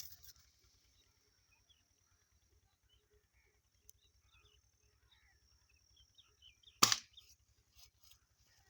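A single sharp airgun shot about seven seconds in, with faint scattered chirps and a steady high hiss underneath.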